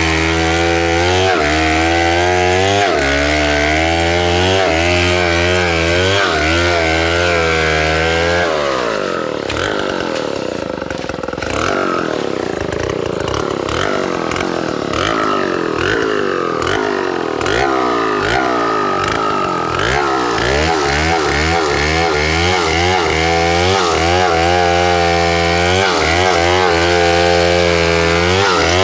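Stihl MS070 two-stroke chainsaw running loud, its engine pitch wavering. From about eight seconds in to about twenty seconds the note turns rougher and slides up and down more, then settles back into a steadier wavering run.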